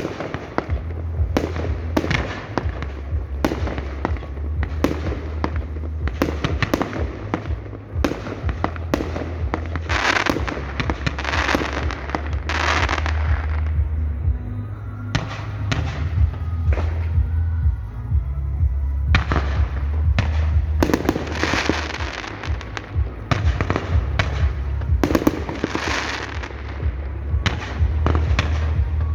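Fireworks display: aerial shells bursting in rapid succession, with crackle, over a continuous deep rumble. The barrage thins out briefly about halfway, then picks up again.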